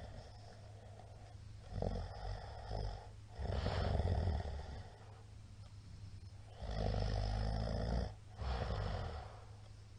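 A middle-aged man snoring loudly in his sleep: two breaths' worth of snores, each a pair of noisy snores about a second long, with quiet gaps between.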